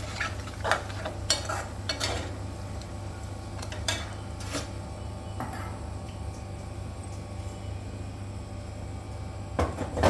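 A utensil clinking and scraping against a cooking pan as the gravy is stirred, in irregular strokes with a cluster of clinks near the end. A steady low hum runs underneath.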